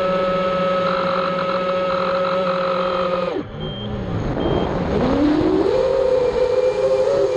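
Quadcopter's electric motors and propellers whining steadily, recorded from the onboard camera. About three and a half seconds in the pitch drops sharply as the throttle is cut, then glides back up and holds steady as the throttle is brought back on.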